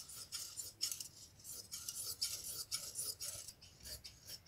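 Scissors cutting through folded cloth: a run of short, crisp snips, about two a second.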